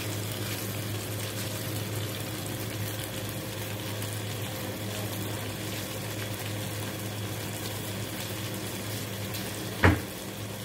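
A pot of chicken and carrots in broth simmering on a gas stove: a steady bubbling over a low hum. There is one sharp knock near the end.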